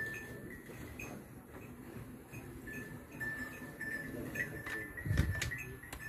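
A cow being milked by hand into a steel bucket: milk squirting into the part-filled pail in a quick, even rhythm. A dull thump sounds about five seconds in.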